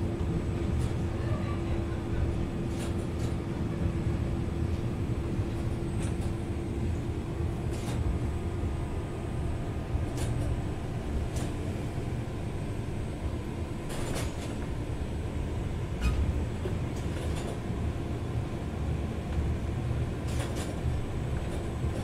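Vintage heritage tram running along its line, heard from inside the car: a steady rumble of wheels on rails with a steady hum, and sharp clicks and rattles every second or two.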